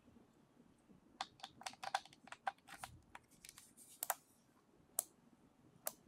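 Small plastic clicks and taps as the Kensington SlimBlade Pro's USB receiver dongle is handled and pushed into its storage slot on the underside of the trackball. A quick flurry of clicks comes first, then two single sharp clicks near the end.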